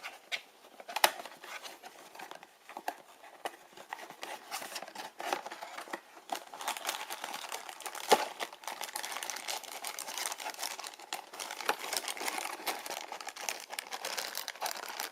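Plastic toy packaging crinkling and rustling as a blind-box figure is unwrapped, with sharp snaps about a second in and about eight seconds in, and the crackle growing denser and steadier through the second half.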